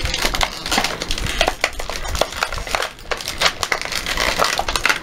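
Clear plastic blister packaging crackling and crinkling in a run of irregular snaps as a small toy figure is pried and pulled out of it.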